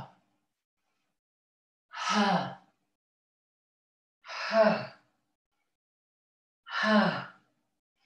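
Loud voiced "haaa" exhalations in a yoga breathing exercise, each breathed out with the head dropped back. There are three in full, about one every two and a half seconds, each falling in pitch, with silence between them.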